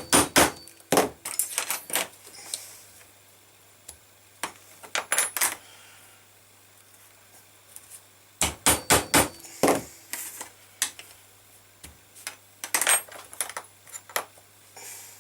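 A mallet striking a metal leatherworking tool set on leather, in quick clusters of sharp blows with pauses between, the metal giving a short ring on some strikes.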